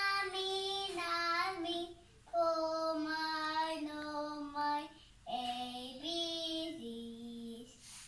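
A young girl singing a children's song alone, in three phrases of long held notes with short pauses for breath between them.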